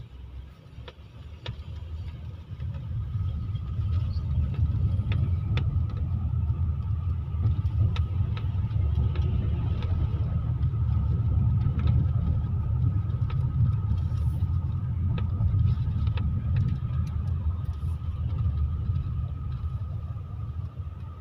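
Low rumble of a car's engine and tyres heard from inside the cabin. It swells over the first few seconds as the car pulls away, then runs steadily, with a faint steady whine and scattered light clicks above it.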